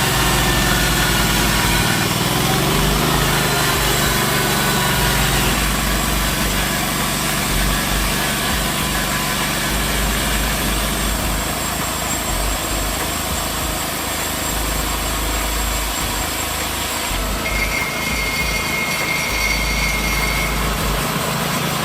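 Portable sawmill's engine running steadily, with a high steady whine for about three seconds near the end.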